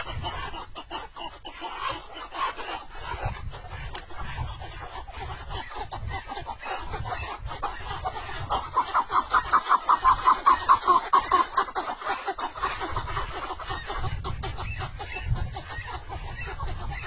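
A flock of wild partridges calling to a tethered decoy partridge: repeated clucking calls, rising to a fast, loud run of about six calls a second around the middle, over a low rumble.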